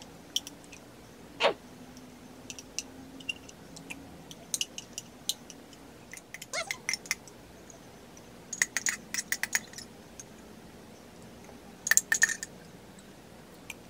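A spoon clicking and scraping against a small baby-food container, in short scattered clusters of clicks.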